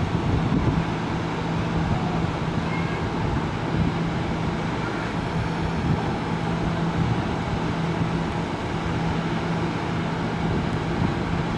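Steady low hum from the parked KiHa 183 series diesel train, its main engines not yet started, with gusty wind rumbling on the microphone.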